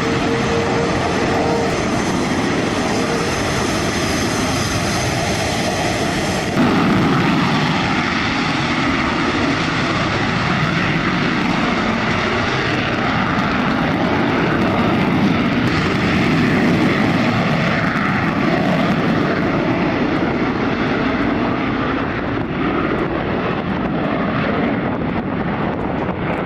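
Aircraft engine noise, loud and steady, changing character abruptly about six and a half seconds in and again near sixteen seconds, as between edited shots.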